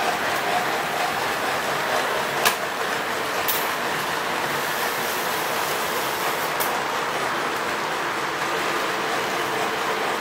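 Model train running on the layout's track: a steady rumble and whir, with one sharp click about two and a half seconds in.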